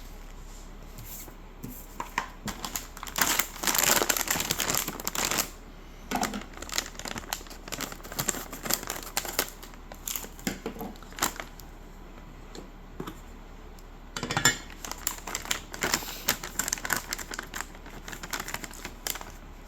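Packaging being unpacked from a pedal kit box: paper and plastic crinkling and rustling in two longer stretches, a few seconds in and again past the middle, with small clicks and taps of handling between.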